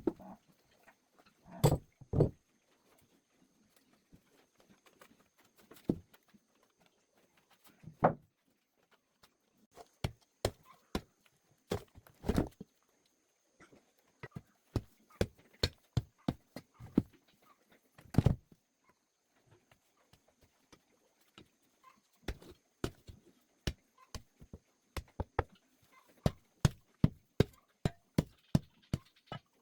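Hoe or similar hand tool striking soil in irregular thuds, sometimes several a second, over a faint steady high tone.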